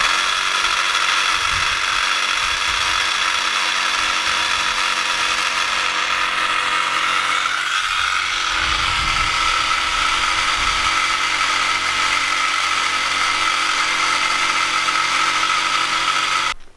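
Handheld power saw running steadily as it cuts wood, stopping abruptly near the end.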